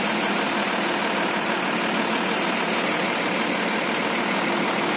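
A vehicle engine idling steadily under a constant hiss.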